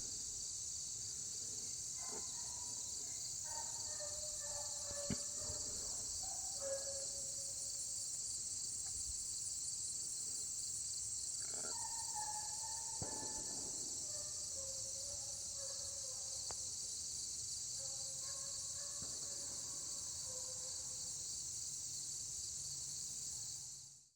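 A steady, high chorus of crickets and other insects, with a few faint short calls in the background; it fades out near the end.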